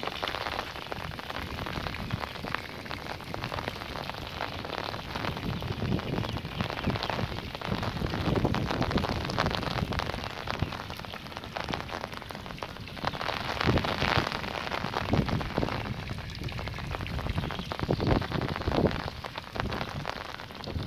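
Heavy rain falling steadily, with wind gusting over the microphone. The loudness swells several times, around a third of the way in, two thirds of the way in and near the end.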